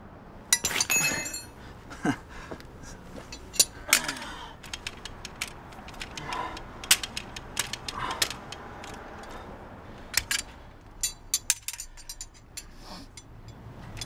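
Metal tools clanking: a lug wrench and car jack banged and knocked about, an irregular string of sharp clanks and clinks, a few ringing briefly.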